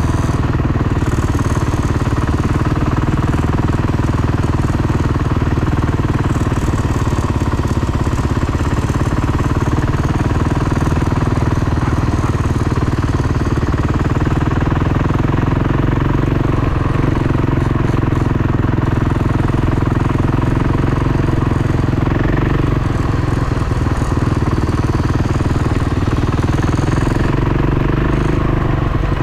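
Dirt bike engine running at a fairly steady speed through the ride, holding an even note with only small changes in pitch.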